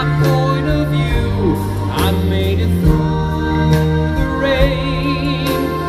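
Live pop music: a male vocalist singing with vibrato over a backing band.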